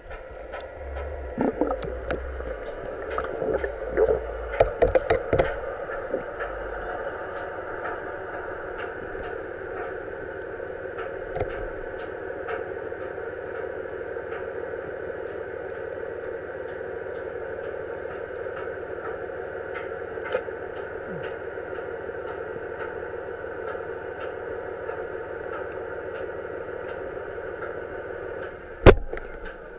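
Underwater noise: a steady hiss with scattered clicks, a cluster of knocks and low thumps in the first few seconds, and one sharp loud bang near the end.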